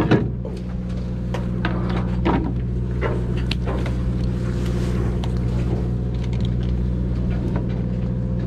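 Steady low hum of a fishing boat's engine, with scattered short knocks and clicks from handling a tautog on a plastic measuring board, the loudest right at the start.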